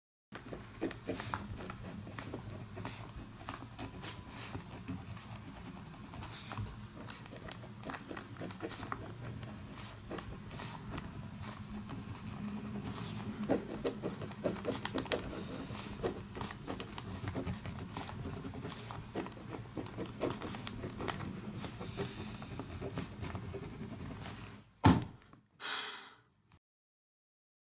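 Pen scratching and tapping on paper close to the microphone: irregular scratches and clicks over a low steady hum, with one loud knock near the end.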